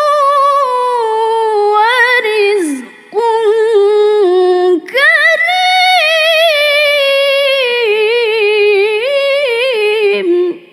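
A woman's solo Quran recitation in the melodic tilawah style: long held notes with wavering ornaments, broken by two short breath pauses about three and five seconds in, and cutting off just before the end.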